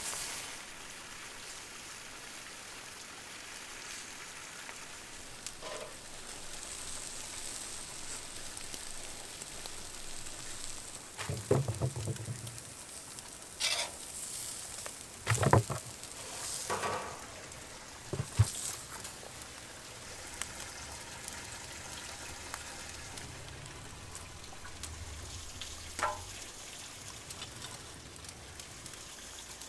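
Bone-in beef steaks sizzling on a grill grate, a steady hiss, with several knocks and thuds in the middle.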